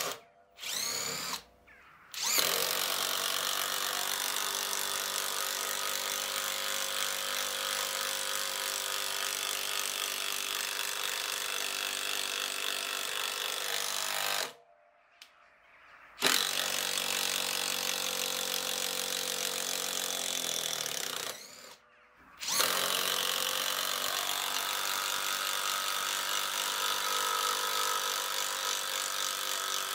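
Bosch GDR 12V-105 12-volt cordless impact driver driving long screws into timber, its impact mechanism hammering. It runs in long stretches with brief stops as the trigger is let off: twice in the first couple of seconds, for about a second and a half midway, and briefly about 22 seconds in.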